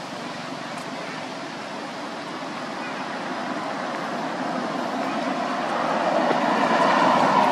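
A motor vehicle passing by: a steady engine and road rumble that slowly grows louder, peaking near the end.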